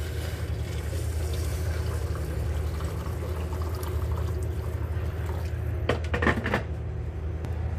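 Hot water pouring from a kettle into a metal pot of rice, a steady filling splash over a low hum. A short clatter of knocks about six seconds in, after the pour has stopped.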